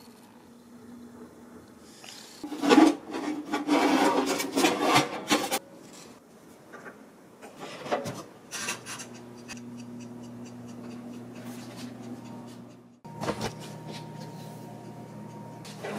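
Rasping scrape for about three seconds as a tray of garlic bread is pushed into a small countertop convection oven, a click near the middle as the oven door shuts, then the oven's steady running hum.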